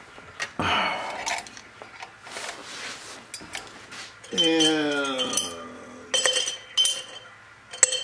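Small metal tools and a soldering iron clinking and tapping on a workbench, with several sharp, ringing clinks in the second half. A short falling hum from a man's voice comes midway, and a brief rustle of handling about a second in.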